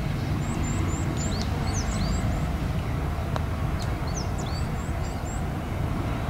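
Steady low outdoor rumble with small birds chirping again and again in short high chirps; a single faint tap about three and a half seconds in, the putter striking the golf ball.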